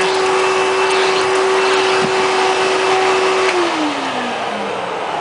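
Hoover bagless Twin Chamber System vacuum cleaner running on straight suction, a steady whine with rushing air; about three and a half seconds in it is switched off and the motor's pitch falls as it winds down.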